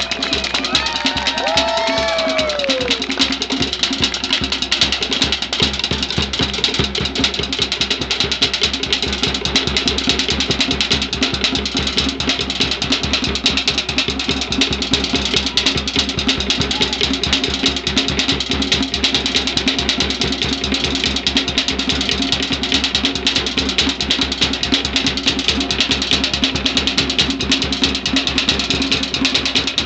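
Fast, steady drumming music with a rapid, even beat of drum strokes throughout, the accompaniment for a fire-knife dance. A few high rising-and-falling calls sound over it in the first couple of seconds.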